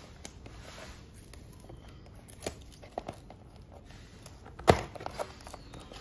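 Hands opening a small cardboard phone box and breaking its seal: faint scraping and light clicks of cardboard, with one sharper snap about three-quarters of the way through.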